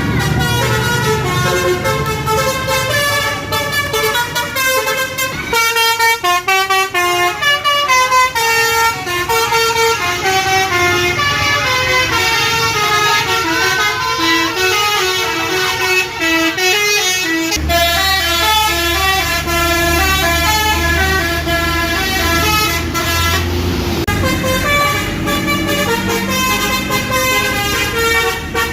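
Telolet basuri multi-tone bus horns playing quick melodic runs of stepping notes, over and over. A low rumble joins about two-thirds of the way through.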